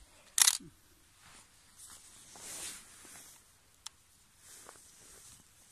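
RGM-40 Kastet grenade launcher being handled and readied to fire: one loud, short, sharp snap about half a second in, then faint rustling and a small click near four seconds as it is raised to aim.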